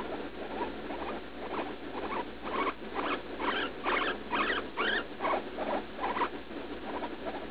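Guinea pig squeaking in pain while passing droppings: a run of short, high squeaks at about two a second, which grow louder towards the middle and stop a little after six seconds in.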